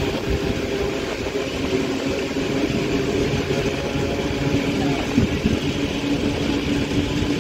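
Vintage passenger train of 45000-series coaches, hauled by an electric locomotive, running on the rails, heard from an open coach window: a steady rumble of wheels and track with wind on the microphone. A faint steady hum comes up in the second half.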